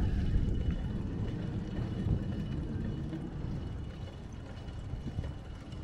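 Wind rumbling on the microphone, an uneven low rumble, over quiet outdoor street ambience, with a faint steady high tone.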